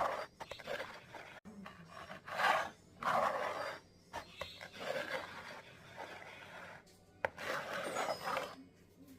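Repeated scraping and rubbing strokes at an uneven pace, each lasting roughly half a second to a second, with a few short clicks between them.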